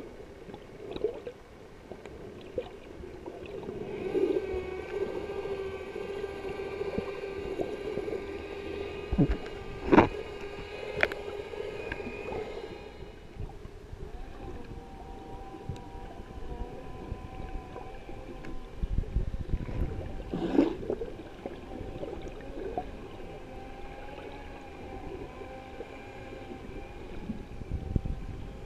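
Boat motor hum heard underwater: a steady pitched whine carried through the water. It fades out about halfway and comes back fainter at a higher pitch. A few sharp knocks stand out, the loudest about a third of the way in.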